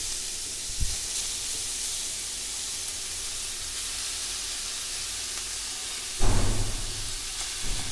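Grated beetroot sizzling in hot ghee in a steel pan, a steady hiss. A short thump about a second in and a louder low thudding late on, from the bowl and pan being handled.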